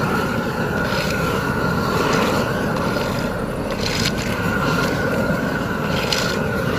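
Heavy asphalt-paving machinery running steadily: a dense engine rumble with a constant whine above it, and a couple of brief higher rasps about four and six seconds in.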